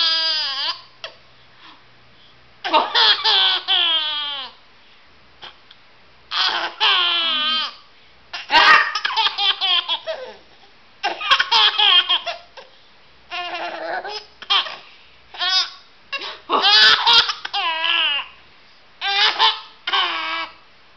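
Baby laughing hard in repeated peals, about every two seconds, each peal sliding down in pitch.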